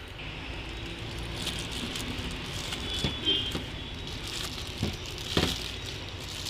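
Packaging rustling and handling as a digital multimeter is taken out of its box, with three sharp knocks in the second half.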